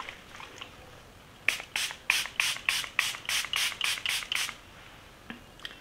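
Makeup setting spray from a pump-mist bottle sprayed onto the face in a quick run of about a dozen short hissing pumps, roughly four a second.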